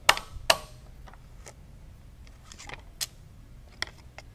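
A handful of sharp metallic clicks and knocks, spaced irregularly and loudest in the first half-second, as small steel blocks are handled and lifted out of a milling-machine vise.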